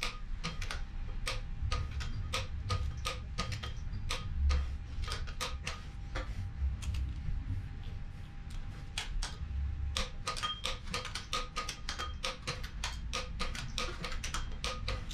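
Torque wrench ratcheting in quick runs of sharp clicks as the flywheel bolts on a Mitsubishi 4G63 engine's crankshaft are brought to final torque in a criss-cross pattern. The clicking thins out for a few seconds around the middle, then picks up again.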